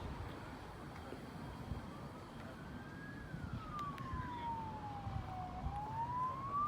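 A siren wailing slowly: one tone falls in pitch over a couple of seconds through the middle, then rises again toward the end, over a steady low rumble.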